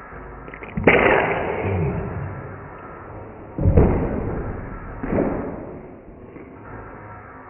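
A baby sneezing three times: sudden bursts about a second in, near four seconds and about five seconds in, each trailing off over about a second, the first two the loudest. The sneezing comes with a stuffy nose while eating porridge.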